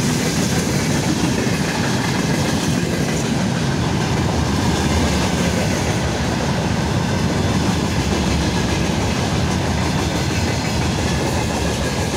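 Freight train wagons (open gondolas and a tank car) rolling past at speed, with a steady, continuous noise of wheels running on the rails.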